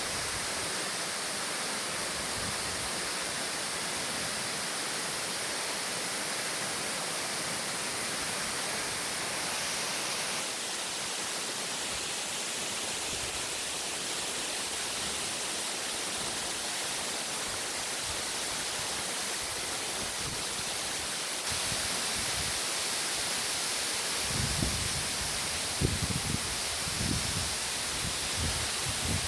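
Steady rushing roar of a tall free-falling waterfall, an even hiss of falling water. It changes abruptly twice, and irregular low thumps come in near the end.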